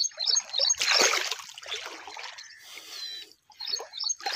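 Irrigation water trickling and splashing into a field, loudest about a second in. A small bird chirps in quick repeated high notes at the start and again near the end.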